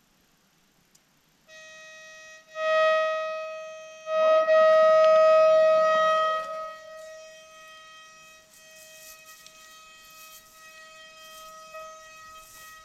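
A steady alarm tone at one unchanging pitch starts about a second and a half in. It swells loud twice for a second or two, then holds on more quietly.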